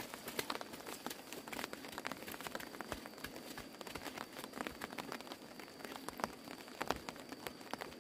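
Light rain pattering: dense, irregular drops ticking on leaves and wet ground, with a faint steady high tone behind it.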